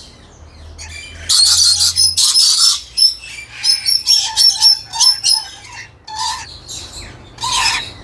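Dusky lories screeching and chattering. Shrill calls come in bursts from about a second in, then a run of short, rapid notes in the middle, and one more burst near the end.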